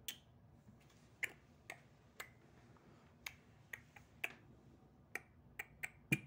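About a dozen sharp, short clicks at uneven spacing, some in quick pairs, over a faint steady low hum.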